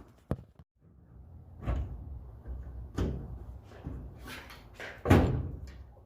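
Tail light bulb socket and housing being handled and fitted back in: a series of separate knocks and clicks, about five in all, the loudest a thump about five seconds in.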